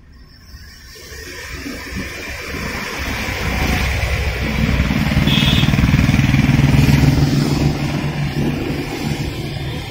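Road traffic on a wet road: a vehicle engine hum swells over several seconds and then holds steady, over the hiss of tyres on the wet road.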